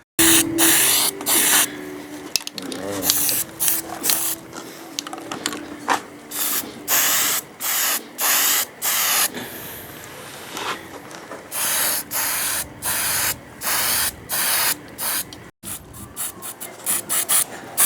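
Red oxide primer being sprayed in many hissing bursts, some short and some a second or more long, stopping and starting throughout.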